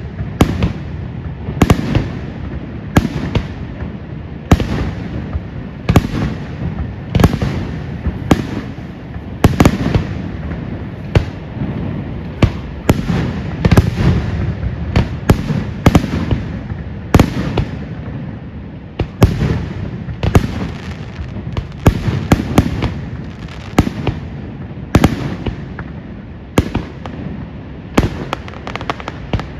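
Fireworks display: aerial shells bursting in quick, irregular succession, sharp loud bangs about one to two a second over a continuous low rumble.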